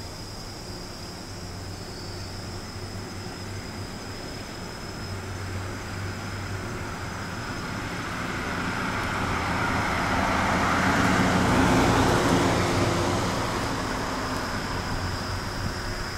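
A van driving past on the road, its engine and tyres growing louder to a peak about twelve seconds in and then fading away, over a thin steady high tone.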